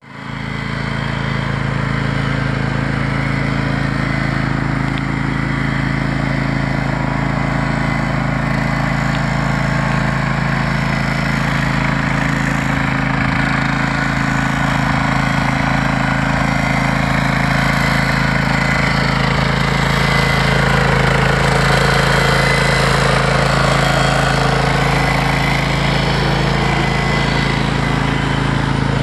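Kubota zero-turn mower's engine running steadily with the mower standing still, a constant even pitch that grows slightly louder about two-thirds of the way through.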